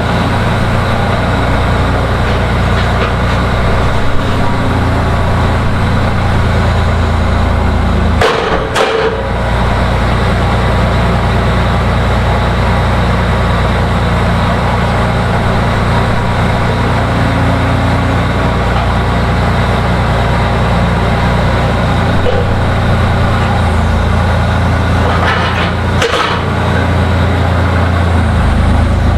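A skid steer's engine runs steadily under load. It dips briefly twice, with a click or knock each time, then cuts off at the very end.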